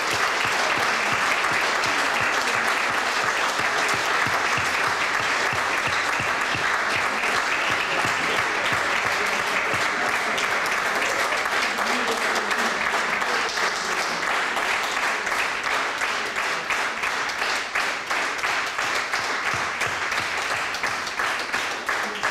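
Audience applauding steadily and at length, thinning toward separate claps near the end.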